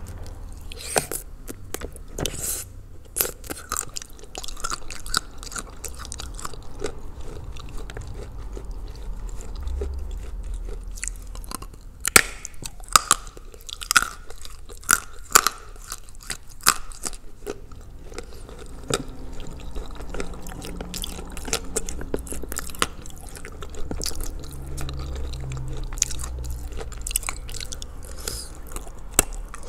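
Close-up biting and chewing of soaked Ural chalk coated in blue Uzbek clay, with irregular crunches throughout and a run of sharper cracks about halfway through.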